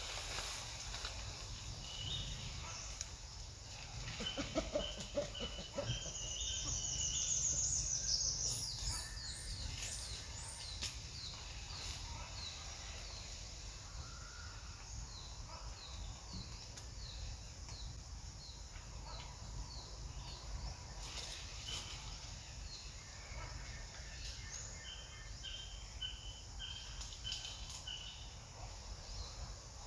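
Outdoor ambience with birds calling: series of short high chirps repeating about twice a second, and a rapid high trill about six seconds in, over a steady low rumble.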